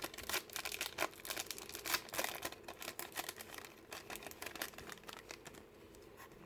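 Trading card pack wrapper crinkling and tearing as it is opened by hand: a dense run of irregular crackles that thins out over the last second or so.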